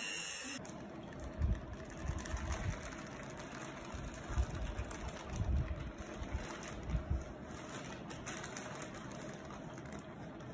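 An electric hand mixer whirs briefly and cuts off about half a second in. Then baking paper is peeled off a sponge cake sheet, with paper crinkling and irregular soft handling bumps over a steady mechanical hum.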